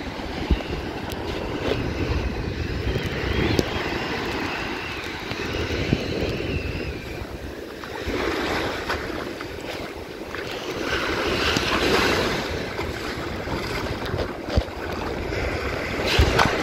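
Small ocean waves washing up the sand and draining back at the water's edge, rising and easing in swells. Wind buffets the microphone with a low rumble.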